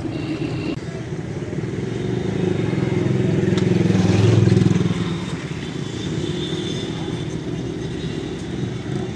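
Street traffic: a small-engined motor vehicle passes close, its engine rumble building to a peak about four to five seconds in and then falling away into steady traffic noise.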